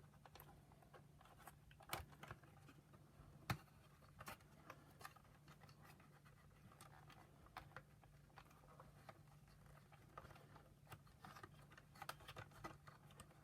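Faint clicks and scratches of small plastic parts and wires being handled, at irregular intervals, the sharpest about three and a half seconds in, over a faint steady hum.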